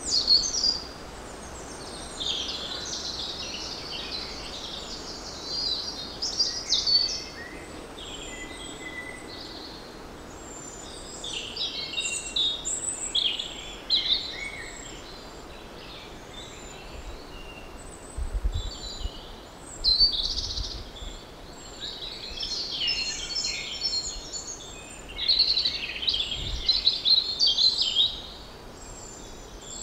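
Wild birds singing and chirping: a steady run of short, varied high-pitched phrases, with a few brief low bumps partway through.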